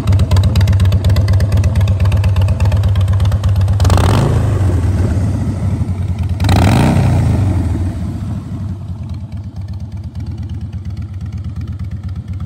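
2007 Harley-Davidson Softail Custom's Twin Cam 96B V-twin idling, its throttle blipped twice, about four seconds in and again a couple of seconds later. It settles back to idle and sounds fainter for the last few seconds.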